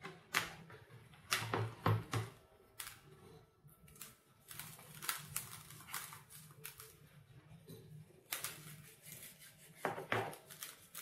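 Hands rubbing a seasoned salt and garlic mix into slabs of pork fat (salo) and handling them in a plastic food container: irregular soft rubbing with scattered clicks and taps against the plastic.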